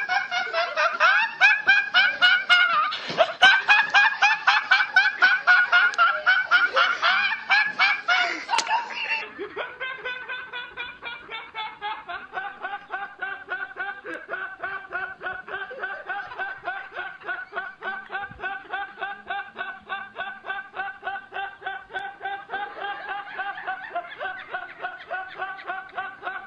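Young men laughing hard and uncontrollably in rapid, high-pitched pulses of several a second. About nine seconds in it cuts to another young man's quieter but equally rhythmic, breathless giggling.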